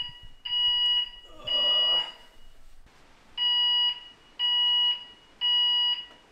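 Hotel fire alarm sounding piercing half-second beeps at one high pitch, in groups of three with a pause between groups. This is the temporal-three evacuation pattern: two beeps finish one group, then a full group of three follows.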